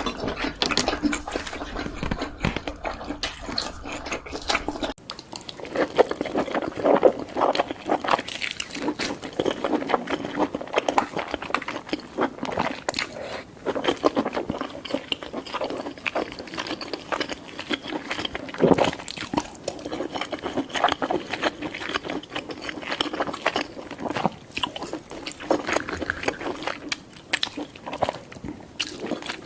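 Close-miked mukbang eating sounds from spicy chicken and instant noodles: continual wet chewing and mouth sounds with frequent small clicks.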